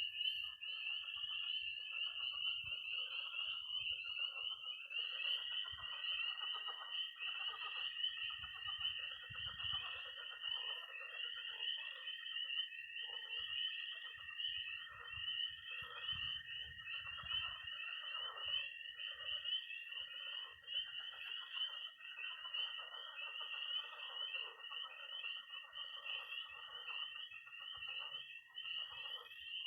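Night chorus of frogs and toads: dense, pulsing high peeping of spring peepers, a long, steady high trill of a toad that breaks off about two seconds in and starts again a few seconds later, and croaking pond frogs beneath.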